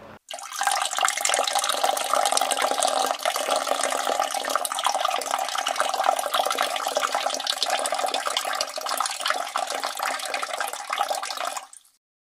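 A steady stream of liquid splashing into a urinal: a person urinating. It starts abruptly and cuts off sharply about a second before the end.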